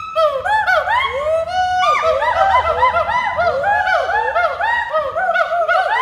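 Western hoolock gibbon whooping: a loud, rapid run of rising-and-falling hoots, several a second, some of them overlapping.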